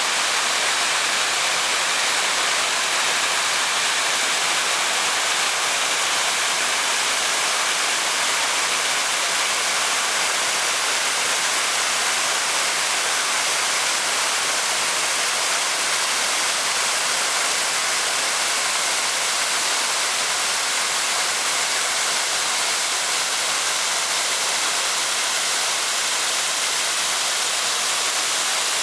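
Waterfall pouring: a steady, unbroken rush of falling water that keeps an even level throughout.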